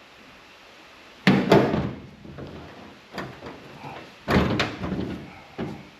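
Hood of a first-generation Dodge pickup slammed shut twice to test a newly installed hood latch, each time a loud metal bang followed a fraction of a second later by a second clunk.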